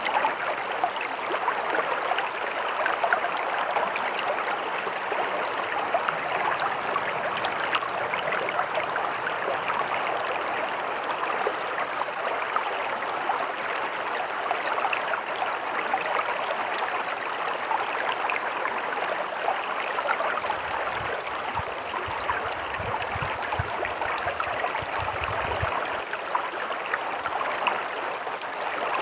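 A stream running, a steady rush of flowing water without a break. A faint low rumble comes in for a few seconds near the end.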